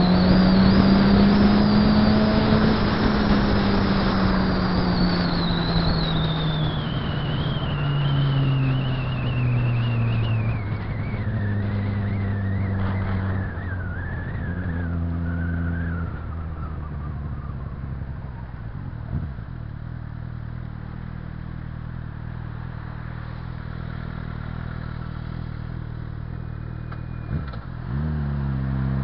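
Suzuki GSX-R 600's inline-four engine heard from the bike while riding. Over the first fifteen seconds the bike slows: the engine note drops in steps and a high whine falls in pitch with the speed. It then runs low and steady, and near the end the revs rise quickly as it pulls away.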